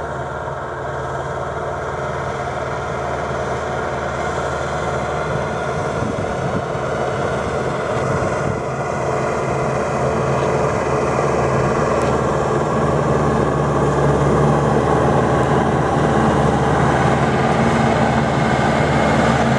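Engine of a ploughing tractor in a rice field, running steadily and growing gradually louder.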